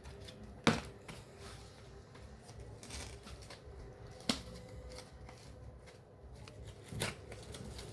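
Hands handling a plastic-wrapped CD case: faint rustling of the wrapping, with three sharp clicks or taps of the case, one just under a second in, one about midway and one near the end.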